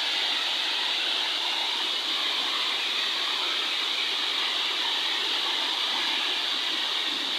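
Waterfall's falling water: a steady rushing hiss with no change in level.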